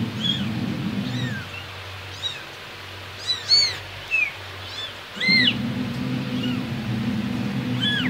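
Young kittens mewing: a string of short, high-pitched mews, each rising and falling, the loudest about three and a half and five seconds in. A steady low hum underneath cuts out for a few seconds midway.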